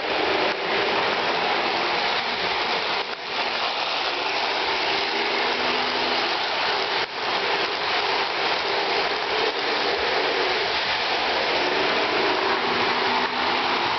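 Lionel O-gauge train (a 2026 2-6-2 Prairie steam locomotive with passenger cars) running on three-rail track: a steady, loud rolling rattle of wheels on the metal rails with a faint wavering motor hum under it, briefly dipping twice.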